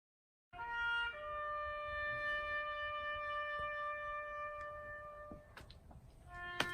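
Background music with long held wind-instrument notes, starting suddenly about half a second in after dead silence.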